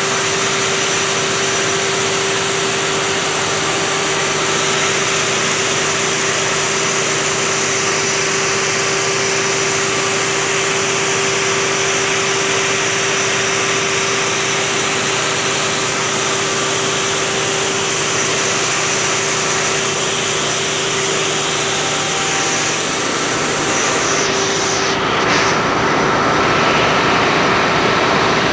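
Loud, steady drone of diesel machinery running in a ship's engine room, with a constant hum held throughout and no change in engine speed.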